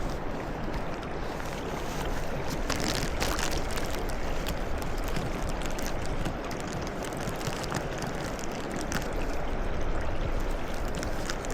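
A river's flowing water, a steady rush, with scattered short ticks that are thickest about three seconds in.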